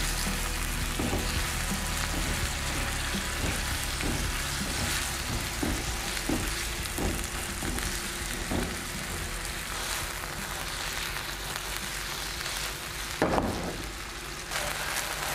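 Cubes of raw chicken breast sizzling as they sear in hot vegetable oil in a nonstick frying pan over medium-high heat. A silicone spatula stirs them with light strokes about every half second over the first nine seconds, and a single knock comes near the end.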